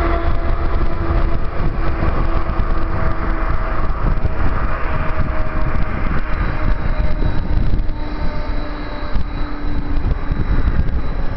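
Diesel-hauled freight train rolling away: a low rumble and a steady locomotive engine hum that dips slightly in pitch and fades out near the end, with wind on the microphone.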